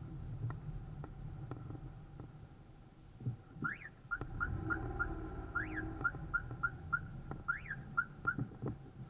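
Low running and road noise of a car driving slowly. About four seconds in, a run of short, high chirps starts, about three a second, broken every two seconds or so by a rising-and-falling whistle.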